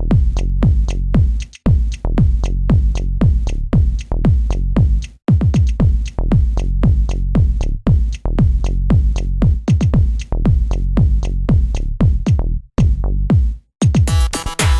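Background electronic music with a steady, fast beat of deep bass hits that drop in pitch, and held synth notes coming in near the end.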